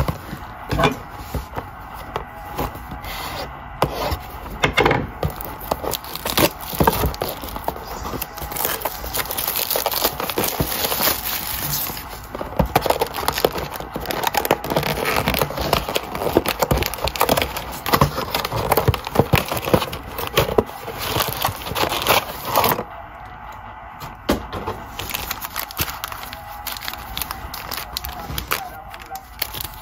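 Trading-card packaging being torn open and handled, with wrappers and card packs crinkling and ripping and cardboard scraping. It is a dense run of sharp crackles that eases off for a few seconds about 23 seconds in.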